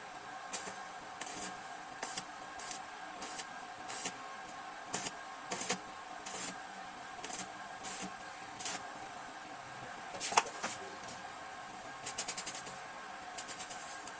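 Hand-tool work on a motorcycle exhaust: short, sharp scraping or tapping strokes, about one or two a second, with a quick run of clicks near the end, over a steady low hum.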